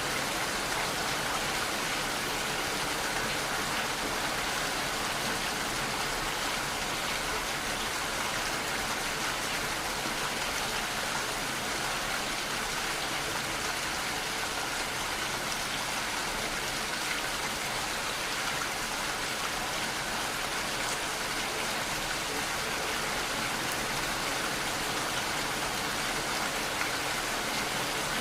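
Steady rainfall, a continuous even hiss of rain falling on surfaces with no thunder or other events.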